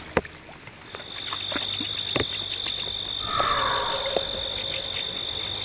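Night chorus of insects and frogs: a steady high insect trill sets in about a second in, with a short falling frog call a little past the middle. A few sharp clicks are scattered through it.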